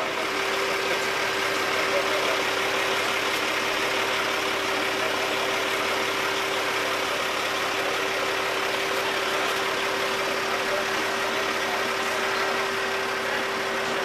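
Fire engine idling: a steady, even engine hum with one constant tone that does not change.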